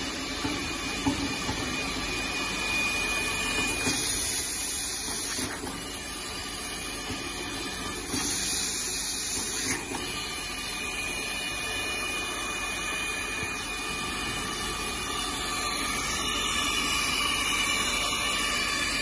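Hightex S350 hot-air seam sealing machine running: a steady hiss of hot air from the nozzle over a machine hum, with two stretches of brighter, sharper hiss about four and eight seconds in.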